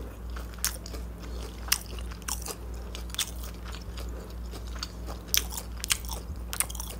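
Close-miked chewing of a fried chicken nugget: irregular crunches and sharp clicks from the mouth, over a steady low hum.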